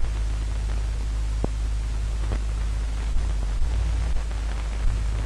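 Steady hiss and low hum of an old optical film soundtrack, with a couple of faint clicks about one and a half and two and a half seconds in.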